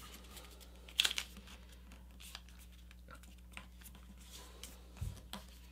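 Sheet of paper being folded over and creased by hand: a sharp crinkle about a second in, then faint rustling and scratching, with a soft thump and more rustles near the end.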